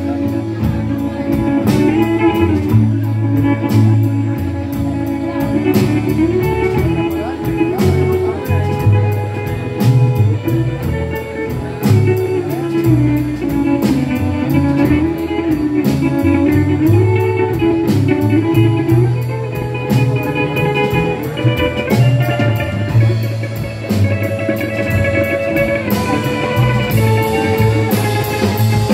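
Rockabilly band playing an instrumental break: upright bass and drum kit keep a steady beat under guitars and saxophone, with a melodic lead line wandering over them.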